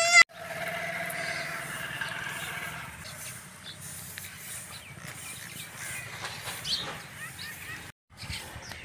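Outdoor village background. A long held call or tone with overtones sinks slightly and fades about three seconds in, followed by scattered short bird chirps.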